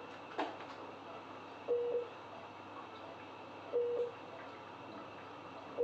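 Medical equipment in an ICU bed space beeping: a single mid-pitched beep repeats about every two seconds, three times, over a faint steady hum. There is a sharp click about half a second in.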